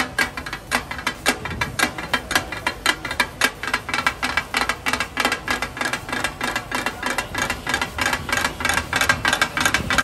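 Two metal spatulas striking a flat steel griddle in a rapid, even rhythm of about five clangs a second as mutton keema is chopped and turned on it.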